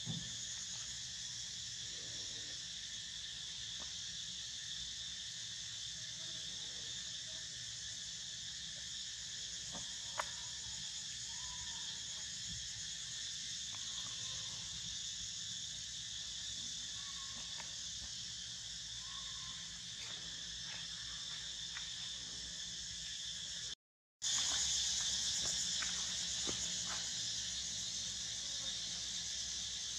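A steady, high-pitched insect chorus, with a few faint short chirps in the middle. The sound cuts out for a moment about three quarters of the way through.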